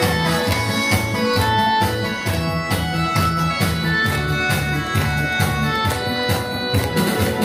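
Karaoke backing track playing a song's instrumental introduction, with a steady beat under a lead melody line.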